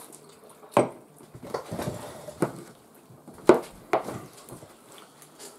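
Metal forks and spoons clinking and scraping against glass bowls and dishes while eating: several sharp clinks with quieter scrapes between them, the loudest about three and a half seconds in.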